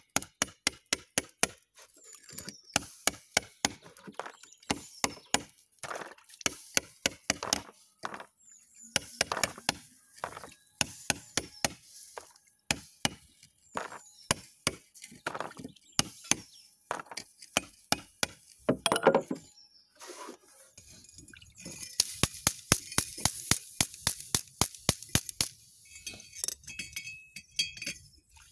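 Small hammer striking a heated galvanized steel pipe held in tongs: sharp metallic knocks at about two to three a second, quickening into a faster, louder run about three-quarters through. The blows knock the burnt galvanized coating off the pipe.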